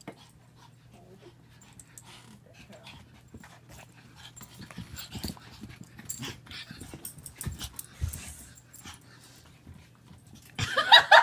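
Swedish Vallhund puppy and Japanese Chin play-wrestling: soft scuffling with many small clicks and knocks, busier in the middle. Near the end a person breaks into loud, rapid laughter, the loudest sound.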